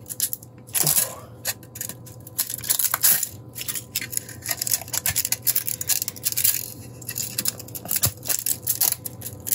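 Support material being snapped and torn off a 3D-printed plastic case with needle-nose pliers: irregular crackling, clicking and snapping of breaking printed plastic.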